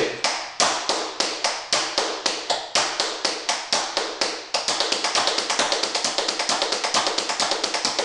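Tap shoes on a wooden floor repeating the jackhammer step, a spank, stamp, spank, dig pattern of sharp, evenly spaced taps. A little past halfway the taps switch to about twice the pace.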